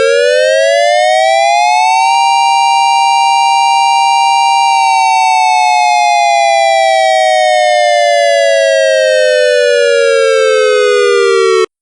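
Dual-tone tornado siren sounding a test on a newly set pitch of about 932 and 788 Hz. Both tones wind up together over about two seconds and hold at the top for about three. They then wind slowly back down for about seven seconds and cut off abruptly.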